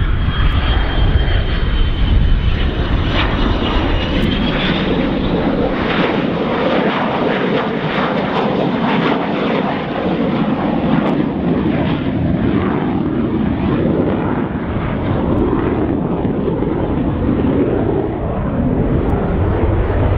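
Saab 37 Viggen's single Volvo RM8 turbofan jet engine running loud as the fighter flies a slow, gear-down display pass. A high whine sits over the roar for the first few seconds, and a rough crackling runs from about four to ten seconds in.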